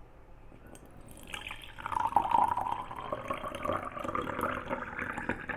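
Water poured in a stream into an empty glass jar, splashing and filling it. It starts about a second in, and the pitch rises as the jar fills.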